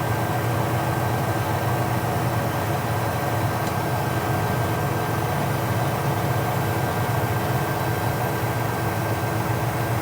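Tractor engine running at a steady speed, a continuous low drone.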